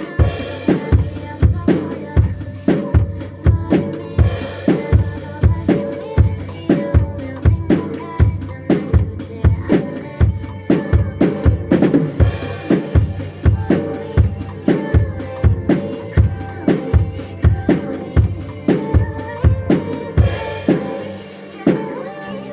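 Drum kit playing a steady beat along with a backing track, with bass drum and snare hits driving it.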